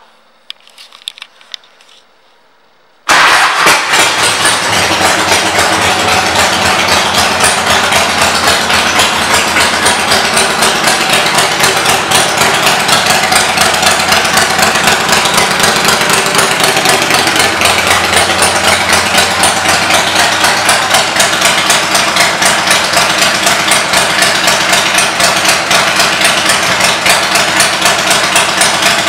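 2003 Harley-Davidson Softail Deuce's Twin Cam 88B V-twin, fitted with Vance & Hines pipes, firing up suddenly about three seconds in after a few faint clicks, then idling steadily with a loud, rapid beat of exhaust pulses.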